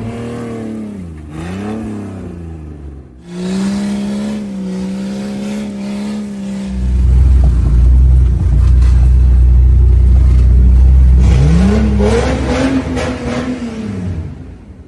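Off-road vehicle engine revving, its pitch rising and falling and then held steady. About halfway through, a heavy low rumble takes over, and near the end another rev climbs and falls away.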